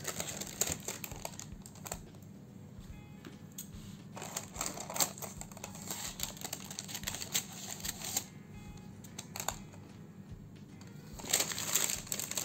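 Gift-wrapping paper rustling and crinkling as it is handled, with scattered sharp clicks and snips from scissors cutting the tape, over faint background music.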